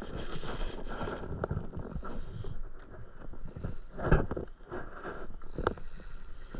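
Small waves lapping and slapping against a stand-up paddleboard, in irregular surges, with a couple of short sharp knocks.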